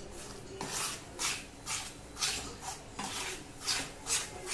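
Steel spoon scraping and pressing a thick roasted besan-and-ghee mixture against the bottom of a pan, about two strokes a second, working out the lumps.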